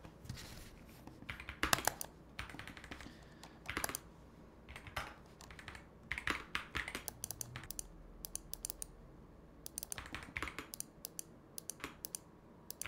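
Computer keyboard keys and the Razer Pro Click V2's mouse buttons clicking in short, irregular clusters, heard close up from a microphone lying beside them.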